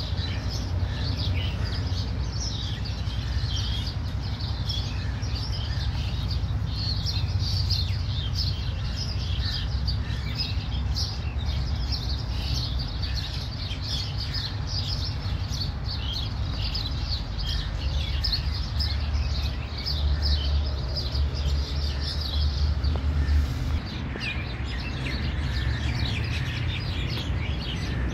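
A chorus of many wild birds chirping, with rapid short high chirps overlapping throughout, over a steady low rumble. The chirping thins out briefly a little before the end, then picks up again.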